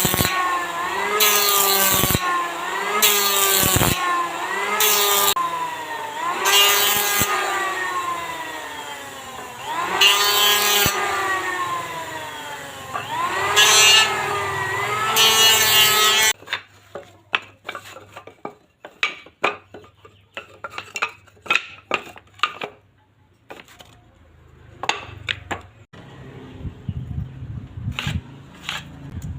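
Hand saw cutting in steady back-and-forth strokes, each stroke ringing with a pitch that rises and falls. The sawing stops abruptly about halfway through, and scattered light taps and knocks follow.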